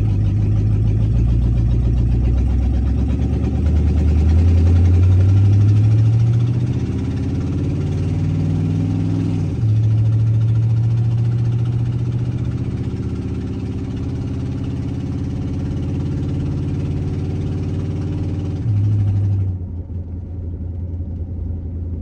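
The engine and exhaust of an old Dodge police car, heard from inside the cabin as it accelerates under an automatic transmission. The pitch climbs, drops suddenly with an upshift about nine and a half seconds in, and climbs again. Near the end the sound falls quieter and thinner as the engine comes off the throttle.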